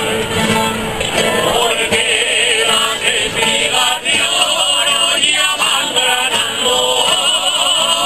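Folk group performing a Spanish jota: voices singing with strong vibrato over strummed plucked-string instruments.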